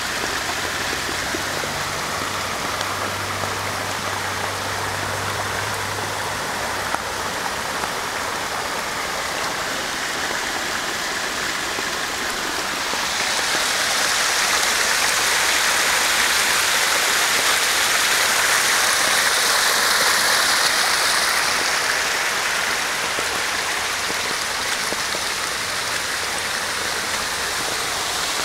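Sewage water rushing out of an overflowing manhole and running over the ground in a steady wash of noise, louder and hissier for several seconds around the middle. It is a sanitary sewer overflow after a heavy downpour.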